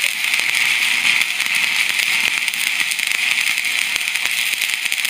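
Arc of a stick welder burning a 6013 electrode: a steady crackling hiss with fine rapid ticks, as a second layer of weld bead is run over the first on a steel ski wear bar.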